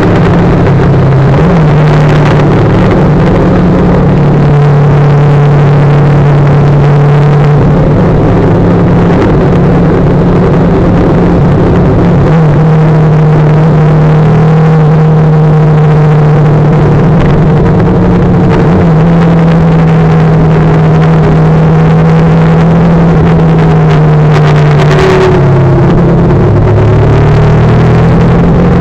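Motorcycle engine running steadily at cruising speed, heard from the riding bike with loud wind and road noise. The engine note dips and comes back up near the end, as the bike eases off and picks up again.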